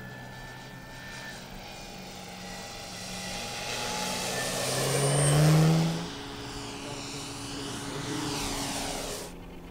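Giant-scale electric RC model of a Robin DR 400/180, its brushless outrunner motor turning a 24x12 propeller, flying past: a steady propeller hum that swells to its loudest about five and a half seconds in, then fades back and cuts off just before the end.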